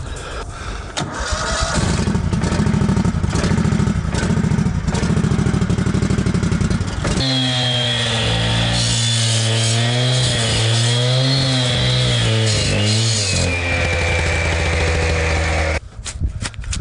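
A small engine running, rattling and uneven for about seven seconds, then abruptly changing to a steadier pitched hum with a faint high whine that wavers, which cuts off suddenly near the end.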